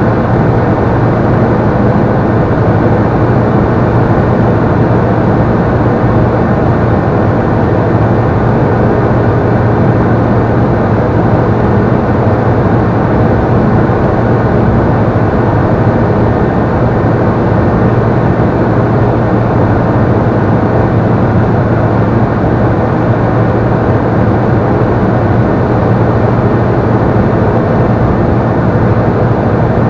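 Robin CDI light aircraft's diesel engine and propeller running steadily in flight, a loud, even drone with a low hum, heard inside the cabin.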